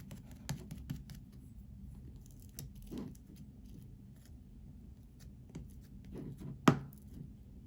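Slime being handled and squished, giving scattered small clicks and crackles, with one sharp, louder pop near the end.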